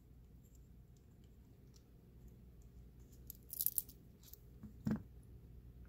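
Faint clicks and small scrapes of a brass padlock cylinder being taken apart by hand, the plug worked out of its housing. There is a short cluster of clicks about three and a half seconds in and a single sharper click near five seconds.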